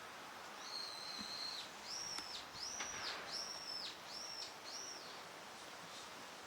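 Eurasian wigeon drakes whistling: a longer whistle, then about five short rising-and-falling whistles in quick succession, over a steady background hiss.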